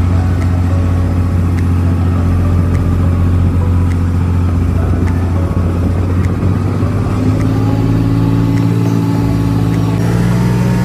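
Motorboat engine running steadily while towing a banana boat, its note stepping up in pitch about seven seconds in.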